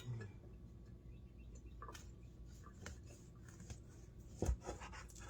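Quiet kitchen room tone: a faint steady low hum with a few soft clicks and knocks, the loudest near the end.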